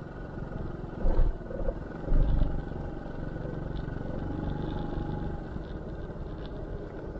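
2005 Honda Helix scooter's single-cylinder engine running steadily while riding at low speed, with a couple of low thumps about one and two seconds in.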